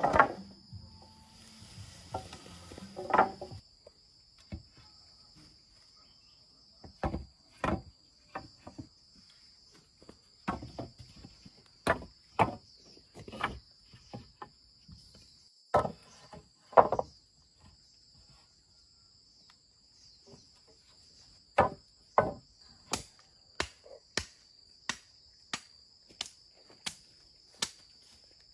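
Steady high chirring of crickets or similar insects, broken by sharp knocks of a tool striking, several in pairs. Near the end the knocks come evenly, about one and a half a second.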